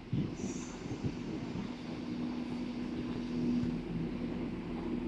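Class 171 Turbostar diesel multiple unit pulling into the platform, its diesel engines running with a steady low hum over the rumble of the train. The sound is loudest about three and a half seconds in, as the cab passes close by.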